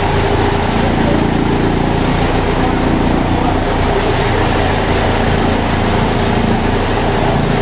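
Eicher tractor's diesel engine running under load, driving a PTO chaff cutter that is chopping green fodder: a steady mechanical running with a constant hum.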